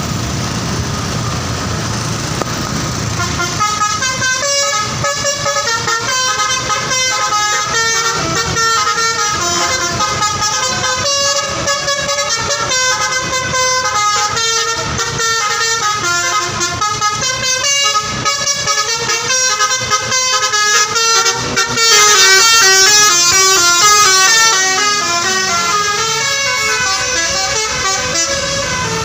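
Bus telolet horn, a multi-tone air horn, playing a melody of short stepping notes that starts a few seconds in over steady engine noise. Near the end comes a louder passage of fast alternating notes.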